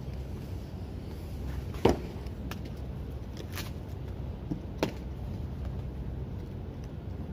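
Sharp knocks from hand work at the foot of a poolside umbrella: one about two seconds in, the loudest, and another near five seconds, with a couple of lighter taps between, over a steady low background rumble.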